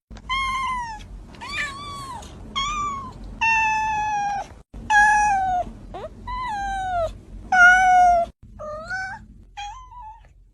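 A cat meowing about ten times in a row, loud and insistent, each meow short and most falling in pitch.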